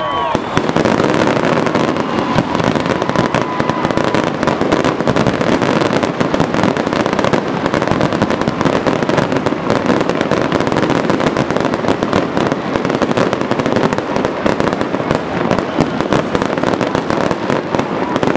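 Fireworks going off in a dense, unbroken barrage of crackling pops and bangs from spark fountains and bursting aerial shells.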